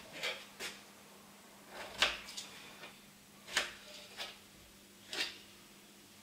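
Irregular clicks and knocks of kitchen things being handled on the counter, about seven in six seconds, the loudest about two seconds in. A faint steady hum runs underneath.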